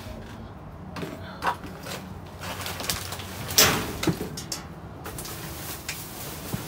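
Trash being rummaged through in a dumpster: scattered rustles and light knocks of plastic bags and cardboard, with one louder crinkling rustle about halfway through.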